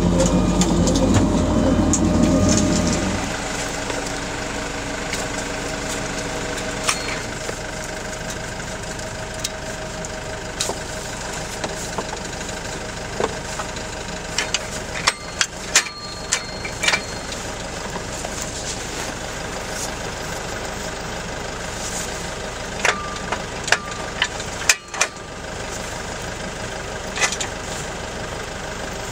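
A louder mechanical rumble from the sander's chain conveyor that stops about three seconds in. After it, the Nissan Cabstar light truck's diesel engine idles steadily, with scattered sharp metal clicks and clanks from the plow mount being handled.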